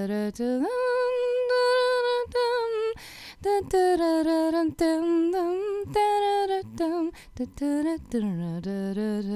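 A woman's voice singing a slow wordless melody unaccompanied, with long held notes and sliding changes of pitch between them.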